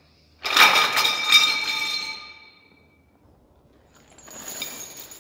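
A metal object clangs against steel, ringing with several clear tones that die away over about two seconds. A softer metallic rattle or scrape follows near the end.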